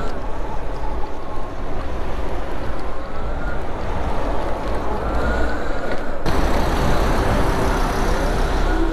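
Wind and road noise while riding a small electric motorbike, with the motor's faint whine rising in pitch several times as it pulls away. About six seconds in, the noise turns abruptly brighter and hissier.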